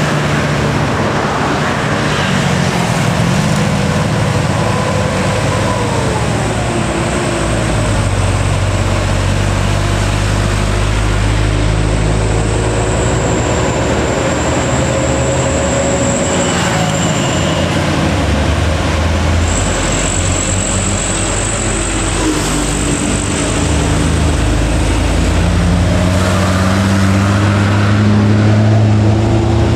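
Heavy diesel trucks labouring uphill under load, their engines droning loudly with pitch shifts as they pull through the climb, and a thin high whine over the top at times.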